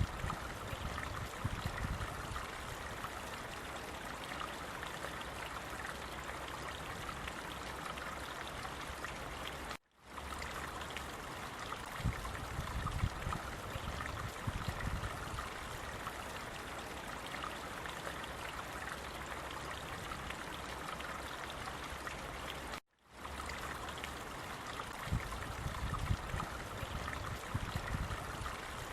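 Water flowing steadily in a stream, an even rushing and trickling with a low burble that swells now and then. The sound cuts out for an instant twice.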